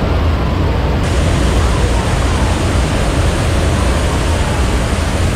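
Flash-flood special effect: a heavy torrent of water cascading down the rocks and spraying, a loud, steady rush. About a second in, the hiss grows brighter.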